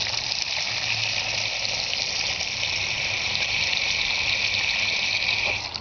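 Water hitting a hot pan, a steady hiss of water and steam that cuts off suddenly near the end.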